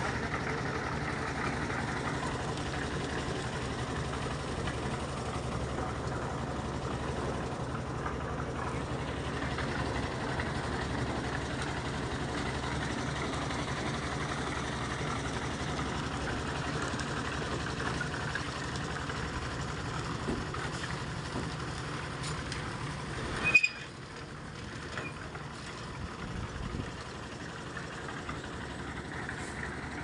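Concrete mixer-and-lift machine's engine running steadily as it mixes and hoists concrete. About two-thirds of the way through there is a sharp knock, and the sound drops abruptly to a quieter engine hum.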